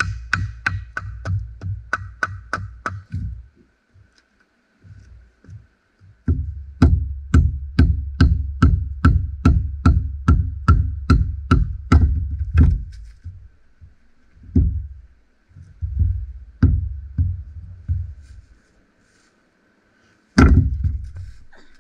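Green-wood club knocking on the back of a hatchet, driving the blade into a log. Quick runs of hard knocks, about three a second, stop for a couple of seconds, start again as a long run, thin out to single blows, and end with one hard strike near the end.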